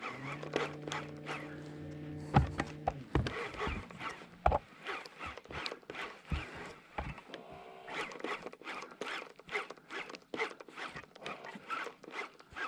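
Irregular clicks and taps from a lifejacket zipper knocking against a GoPro's built-in microphone, with a steady low hum for the first three seconds or so.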